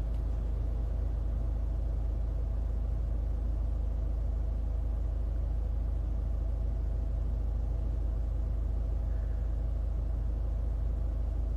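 Steady low rumble of a car heard from inside the cabin, with a faint even hum above it and no change in level.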